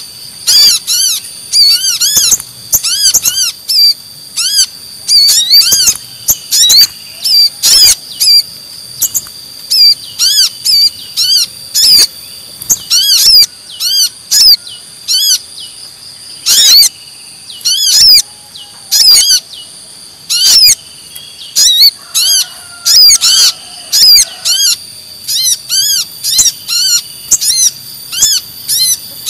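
Sunbird calls from a bird-lure (pikat) recording, brown-throated sunbird ('kolibri kelapa') mixed with sogon sunbird: high-pitched arched chirps given in fast bursts, repeated over and over.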